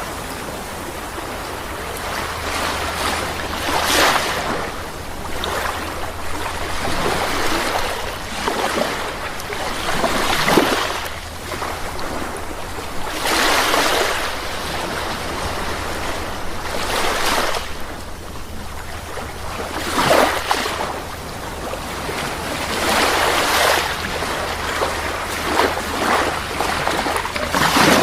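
Sea waves surging and washing in every few seconds, over a steady low hum.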